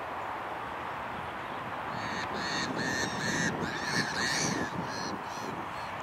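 A quick series of short, harsh bird calls, about three a second, from about two seconds in to near the end, over a steady background rush.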